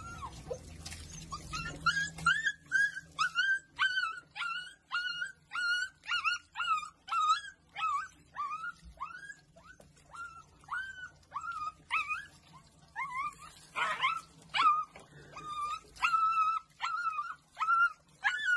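A puppy crying and whimpering over and over while being washed, in short high-pitched cries two or three a second.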